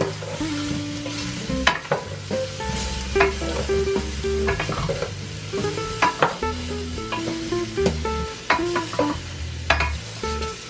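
A wooden spatula stirs oxtail pieces searing in a stainless steel pot. The meat sizzles, and the spatula knocks and scrapes against the pot about ten times. Light guitar music plays underneath.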